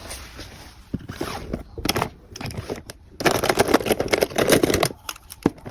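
Plastic packaging crinkling and rustling as small items are handled and packed, loudest in a dense stretch a little past halfway.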